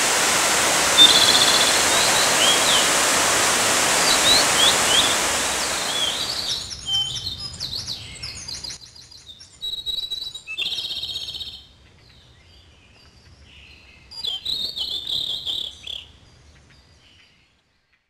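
Rushing water of a mountain waterfall with small birds chirping over it. About six seconds in, the water sound fades away, leaving only scattered bird chirps and trills with quiet gaps between them.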